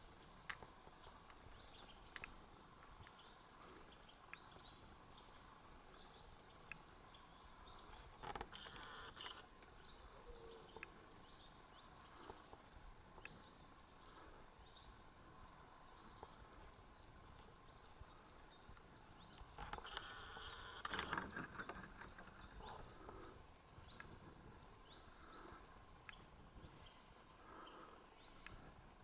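Faint outdoor quiet with many small, scattered chirps. Two brief bursts of rustling noise come about eight seconds in and about twenty seconds in, the second the louder.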